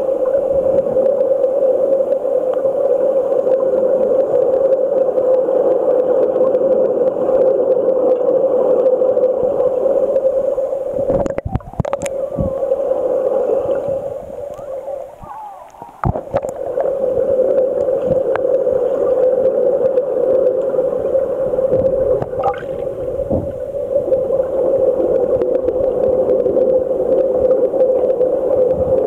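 Steady, muffled underwater rushing picked up by a submerged camera, with a few sharp knocks just before halfway. The rush drops away for a moment around the middle, then returns.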